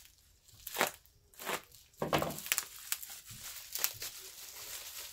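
Clear plastic packaging bag crinkling as it is pulled open by hand, in several sharp bursts, then softer rustling near the end.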